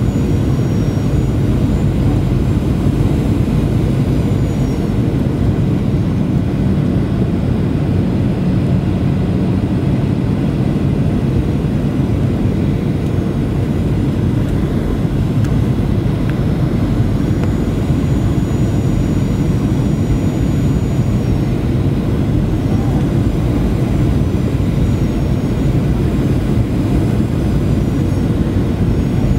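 Cabin noise of a Boeing 737-800 on final approach, heard from a window seat beside the CFM56-7B26 engine: a steady low rumble of engine and airflow, with a faint high whine that rises and falls in pitch a few times.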